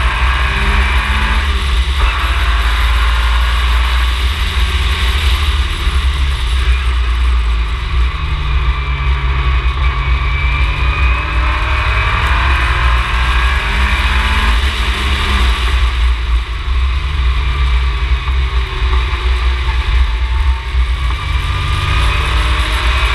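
Ginetta G20 race car engine under hard driving. Its note climbs and falls again and again as the car accelerates, changes gear and slows for corners, over a heavy, steady low rumble.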